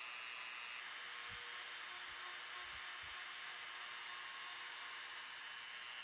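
Dremel 3000 rotary tool running steadily with a high-pitched whine, its diamond flame bit grinding feather groups into tupelo wood. The whine steps slightly higher about a second in.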